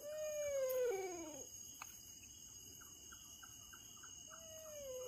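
An animal's long wailing cry, falling in pitch over about a second and a half, with a second similar wail starting near the end. Insects trill steadily underneath.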